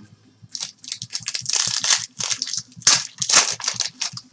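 Foil trading-card pack wrapper being torn open and crinkled by hand: a dense run of crackling rustles, loudest around the middle.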